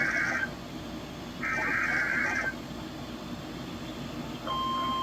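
Emergency Alert System SAME header data bursts: raspy digital buzzes about a second long, one ending just as another follows a second later, marking the start of a new alert. Near the end, the steady NOAA Weather Radio 1050 Hz warning alarm tone comes on.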